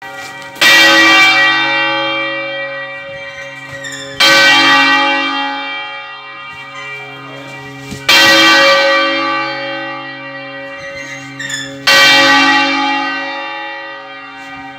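Large bronze church bell being rung up by hand with a rope, building its swing toward full-circle Valencian-style turning (volteo). The clapper strikes four times, about every four seconds, and each stroke rings out loudly and slowly decays.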